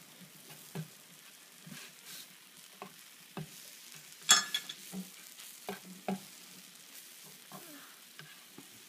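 Pancakes sizzling faintly on a hot stovetop griddle, with scattered light knocks and one sharp clink about four seconds in.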